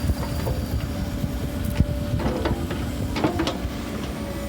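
Excavator's diesel engine running steadily, with a few sharp metallic clanks, about two and three seconds in.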